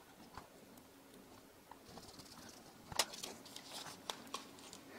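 Faint handling of a plastic camcorder body during reassembly, with one sharp plastic click about three seconds in and a few lighter clicks after it.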